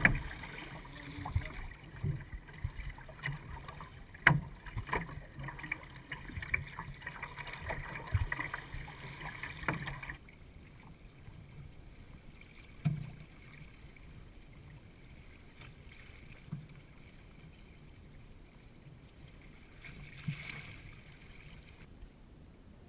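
Water slapping and splashing against the hull and outrigger floats of a wooden sailing canoe under way, with frequent sharp knocks. About ten seconds in it drops abruptly to a quieter, steady wash of water with an occasional single knock.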